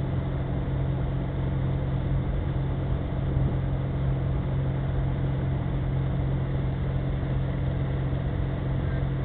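Tow boat's engine running steadily at speed, a constant low hum, over the rush of its churning wake, heard from the boat's stern.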